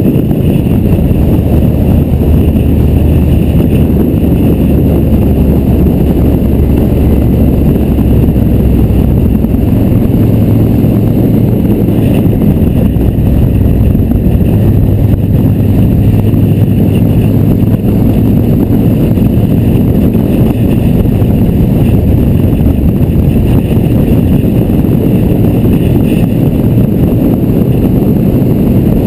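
Motorcycle riding at road speed, heard from the bike's own mounted camera: a loud, steady rush of wind and road noise over the engine drone. The engine note shifts a couple of times along the way.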